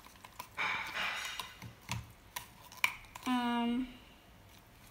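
Plastic knife stirring and scraping thick, chunky slime in a foam cup, with a few light clicks as it knocks the cup.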